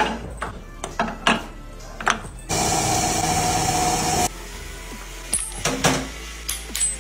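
Metal cricket-ball moulds clanking and knocking as they are handled at a multi-tier moulding press, broken by a steady loud hiss of about two seconds that cuts off suddenly, then more knocks and a duller thud.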